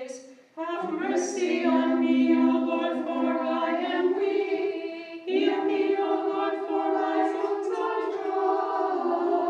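A small unaccompanied choir chanting an Orthodox hymn in long held notes. The singing breaks off briefly about five seconds in, then goes on.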